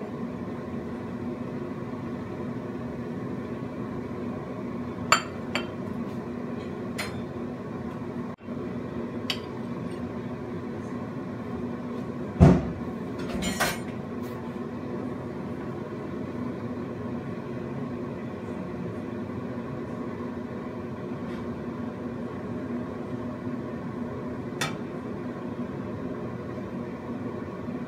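A cooking utensil clinking and knocking against a nonstick wok as spaghetti is tossed, a handful of scattered strikes with one loud knock about twelve seconds in. A steady mechanical hum runs underneath.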